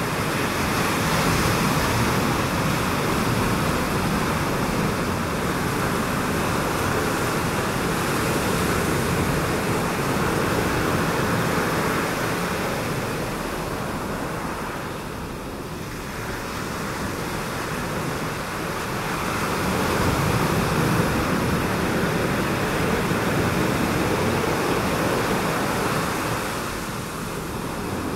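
Ocean surf breaking over a shallow reef: a steady rush of waves that swells and eases, softening about halfway through and again near the end.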